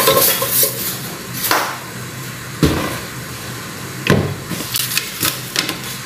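Three dull knocks of kitchenware, each over a second apart, over a steady hiss.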